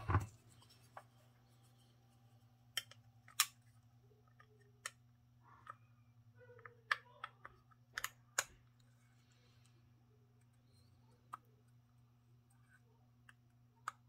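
Scattered light clicks and taps of a G10 composite grip panel being handled and pressed onto a steel Beretta-style pistol frame for a test fit. Most come in the first nine seconds, with one more about eleven seconds in, over a steady low hum.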